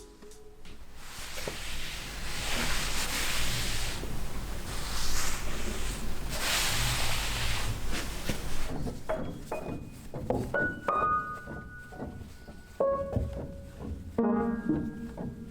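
A rushing noise that swells twice, then piano notes start a little past halfway and carry on as single and clustered notes.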